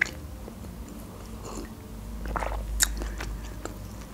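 Close-miked mouth sounds of drinking from a glass mug: sips and swallows with a few soft clicks, louder a little past halfway.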